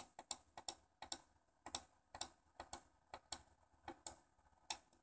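Small tactile pushbuttons clicking under a fingertip, pressed and released over and over in quick pairs of clicks, as text is entered letter by letter on a two-button binary-search keyboard.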